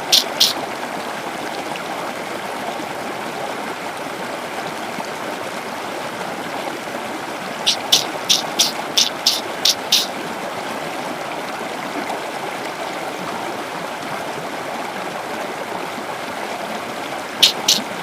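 A steady rush like running water, broken about eight seconds in and again near the end by a quick run of six or seven short, sharp, high-pitched animal calls or chirps.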